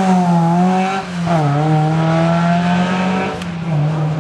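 Historic rally car's engine revving hard out of a hairpin. The revs sag, break off briefly about a second in, then climb again, and the sound drops away after about three seconds as the car pulls off.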